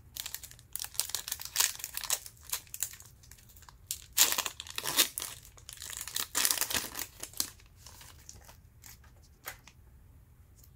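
A trading card pack's wrapper being torn open and crinkled: a run of crackling rustles, loudest in the middle, that thins out to a few light clicks near the end.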